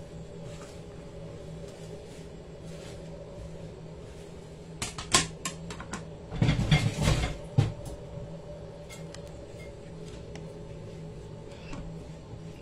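A few knocks and a clatter, about five to eight seconds in, as a kitchen knife is set down on a tiled floor, over a steady low hum.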